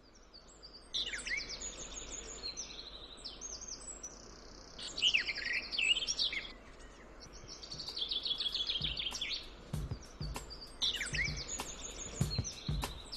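Songbirds singing in woodland, with repeated high trilling and chirping phrases. In the last few seconds, footsteps crunch through dry fallen leaves.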